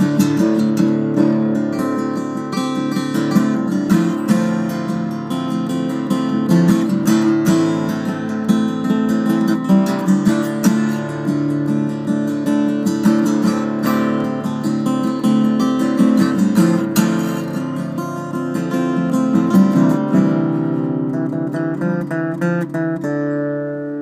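Acoustic guitar played with the fingers: a continuous riff of plucked notes and chords. Near the end a quick run of notes gives way to a chord left ringing.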